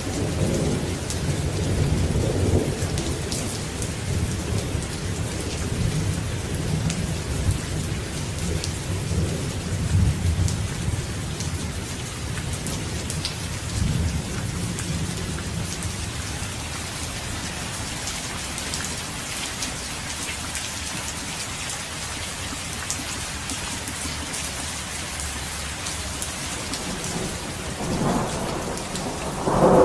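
Steady heavy rain with rolling thunder: a long low rumble through the first half that dies away, leaving the rain alone, then another thunder rumble building near the end.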